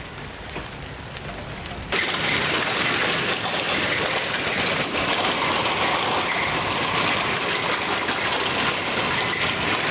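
Hailstorm: rain and hail pelting down in a dense, steady rattle, growing much louder after a sudden change about two seconds in.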